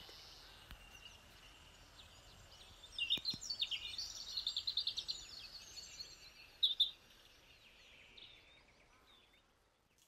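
Finch song: a fast run of high, twittering notes lasting a couple of seconds, then a pair of louder, sharper notes, over a faint steady outdoor hiss.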